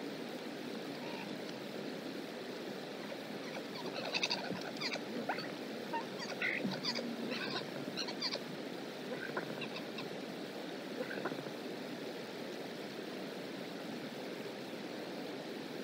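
A series of short, high bird calls, clustered between about four and eleven seconds in, over a steady rushing background.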